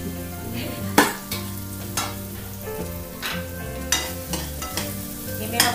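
Wooden spatula stirring and scraping in a metal kadhai of malai bubbling down into ghee, with a steady frying sizzle. Four sharp knocks of the spatula against the pan, the loudest about a second in.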